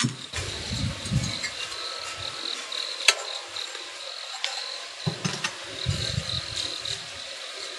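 Crickets chirping in a steady pulsing high tone. Over it, gloved hands handle wood-fired stoneware cups, with low rubbing sounds and sharp ceramic clinks; the loudest clink comes about three seconds in.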